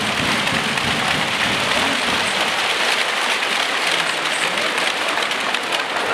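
A large arena crowd applauding steadily, a dense clatter of many hands clapping.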